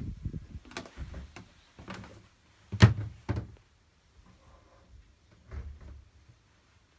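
A series of knocks and thuds inside a boat's wooden cabin. Several small ones come in the first two seconds, the loudest about three seconds in with another just after it, and one more near the end.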